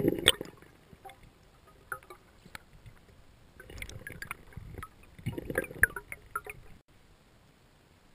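Underwater handling noise on a camera mounted on a speargun: water rushing over the housing, with sharp knocks and clicks. The loudest knock comes at the very start, and two rough spells follow in the second half before it goes quiet.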